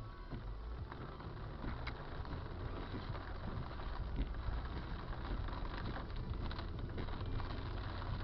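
Heavy rain falling, a dense patter of drops over a low steady rumble.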